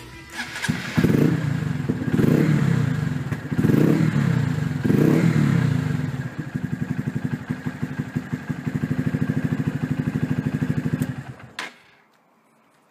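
Honda CBF125's air-cooled single-cylinder four-stroke engine, fitted with a Scorpion Red Power exhaust, starting up and being revved four times, then idling with an even exhaust beat. It is switched off near the end and stops suddenly.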